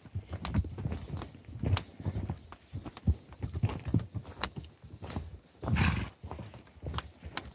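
Saddled horse and people walking down a steep dirt trail: irregular hoof thuds and footstep scuffs on packed earth, with brush brushing past. One longer breathy rush of noise comes near the six-second mark.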